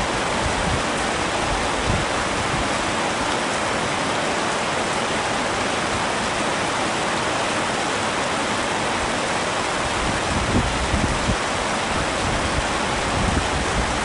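Heavy rain falling steadily on a tent, an even hiss of downpour, with the low end swelling a little near the end.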